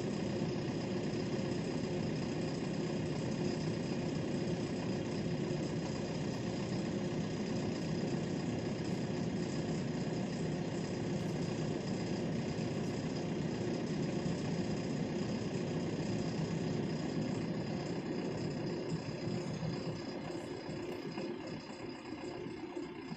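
JCB 3DX backhoe loader's diesel engine running steadily, a constant mechanical hum that grows fainter over the last few seconds.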